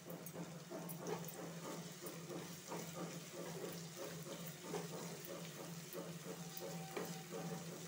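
Spatula stirring sliced onions, curry leaves and ginger-garlic paste in a hot oiled pan: repeated scraping strokes against the pan with a light sizzle, over a steady low hum.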